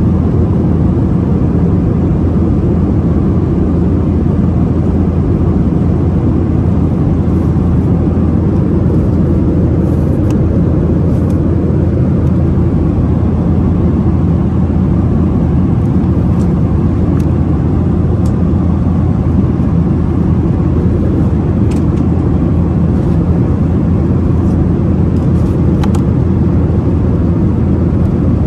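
Cabin noise of a Boeing 737-800 in flight: a steady low rumble of its engines and rushing air, with a few faint clicks from the paper menu and safety card being handled.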